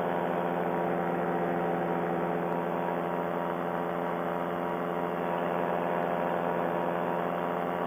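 Paramotor engine running at a steady cruise, an even drone that holds one pitch.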